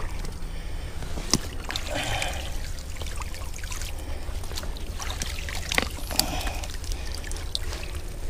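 Creek water trickling and splashing, with a few sharp clicks, as a gloved hand pulls wet sticks and mud out of the shallow water around a beaver trap.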